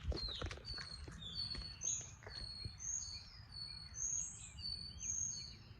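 Several small birds chirping, many short high notes overlapping one another. A few soft knocks sound in the first couple of seconds.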